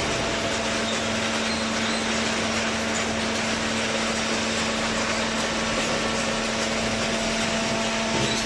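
Vertical cardboard baler running, its hydraulic pump giving a steady hum over loud, even machine noise.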